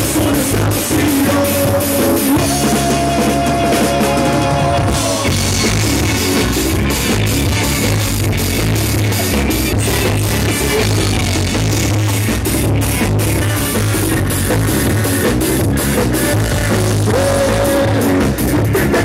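Live band playing loud rock music, with drum kit, guitar and brass. A few held notes sound in the first few seconds.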